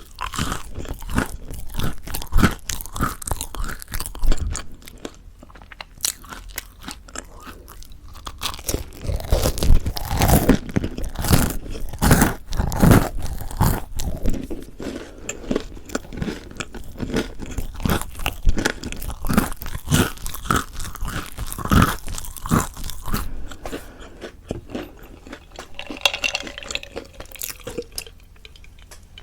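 Close-miked biting and chewing of crispy mocha chewy bread, with the crust crunching and crackling in repeated mouthfuls. It is quieter and softer for a few seconds near the end.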